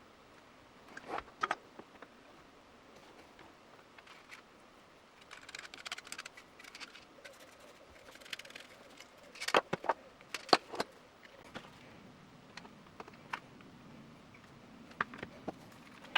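Workshop handling noises from plastic bodywork repair: scattered sharp clicks and light knocks with short stretches of scraping, the loudest a cluster of clicks about ten seconds in.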